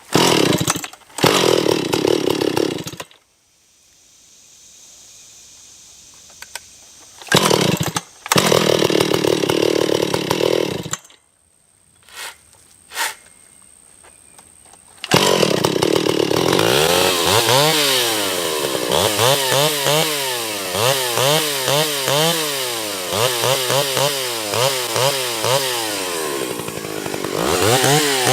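Antique Stihl chainsaw running in two short spells with pauses between, then from about halfway through running continuously, its engine speed rising and falling again and again.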